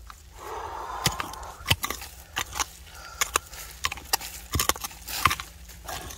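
Irregular sharp knocks and clacks of hard objects striking, about a dozen spread over a few seconds, with a brief rustle near the start: tools and stones being worked or handled during hand digging in stony clay.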